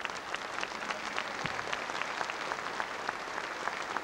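Concert audience applauding in a hall, the claps falling into a steady rhythm of about three to four a second.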